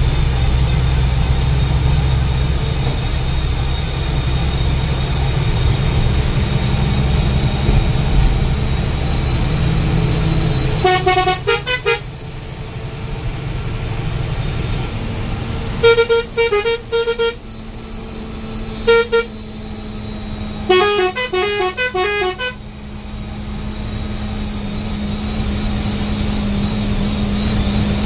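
A bus's multi-tone musical horn sounding four times in short runs of quickly changing notes, the last run the longest, over the steady drone of the bus's engine and tyres on the road.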